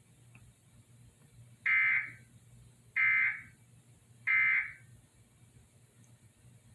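Emergency Alert System end-of-message data tones: three short bursts of the digital SAME code, about a second and a third apart, signalling that the alert is over.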